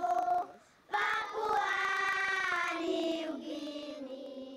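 Voices singing a slow melody in long held notes, broken by a short pause about half a second in; the second phrase slowly fades near the end.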